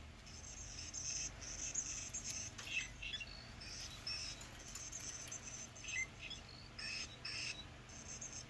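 Feathered hummingbird cat toy making electronic bird chirps: a string of short, high chirps that starts just after the start, with some louder ones.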